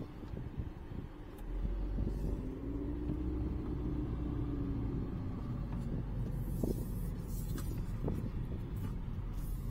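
Car cabin noise while driving slowly: a steady low rumble of engine and tyres, with a faint tone that rises and falls in pitch. From about six seconds in, a hiss and a few light clicks join it.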